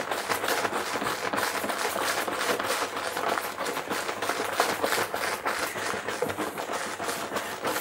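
About five litres of beer wort sloshing and splashing inside a ribbed plastic jug used as a fermenter, shaken hard by hand in a rapid, rhythmic churning. The shaking aerates the wort, dissolving oxygen for the yeast before pitching.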